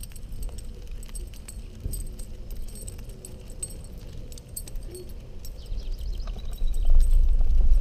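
Light metal jingling and rattling from a bicycle and its dog-leash attachment while riding, over a low rumble of tyres and wind that gets much louder near the end.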